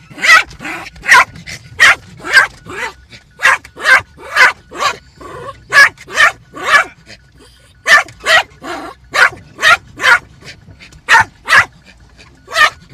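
Yorkshire terrier barking over and over in a car cabin, about two short, high barks a second with brief pauses: the agitated barking of a dog the owner calls stressed out.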